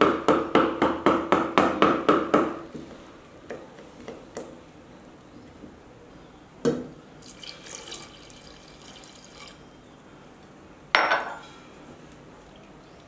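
Cooked lentils being mashed in a steel pressure cooker: a fast run of knocks, about five a second, that set the pot ringing for the first couple of seconds, then scattered knocks and scraping, and one loud ringing knock near the end.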